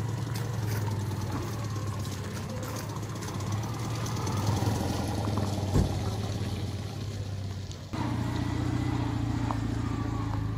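Citroën 2CV air-cooled flat-twin engines running at low speed as the cars move slowly along. A different 2CV's engine is heard from about eight seconds. A single sharp knock, the loudest moment, comes about six seconds in.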